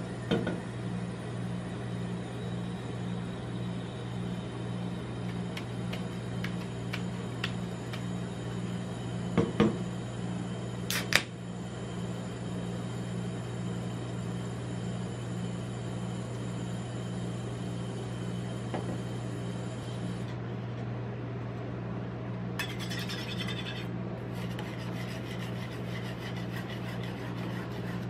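Steady low hum from a rolled ice cream machine's refrigerated steel plate, with a few sharp clicks about nine and eleven seconds in. In the last few seconds a metal spatula starts tapping and scraping on the steel plate as the soda is spread.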